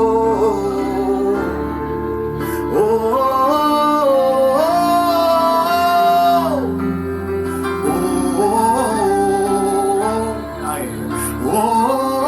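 Slow gospel worship music: a voice sings long held notes that glide from pitch to pitch, with no recognisable words, over a steady instrumental accompaniment.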